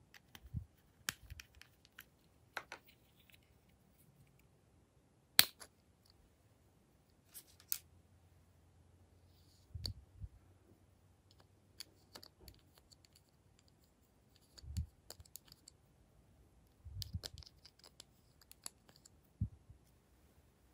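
Sparse, irregular clicks and taps of small plastic cosmetic containers and caps being handled and opened, with a few soft low bumps; the sharpest click comes about five seconds in.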